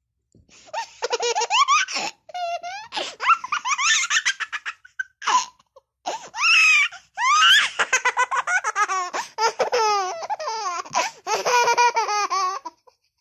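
High-pitched laughing in several fits with short breaks between them, each fit a quick run of pulses whose pitch slides up and down.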